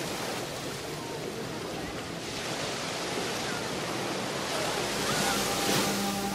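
Surf washing onto a beach, a steady rushing noise that swells after the first couple of seconds. A sustained low musical tone comes in near the end.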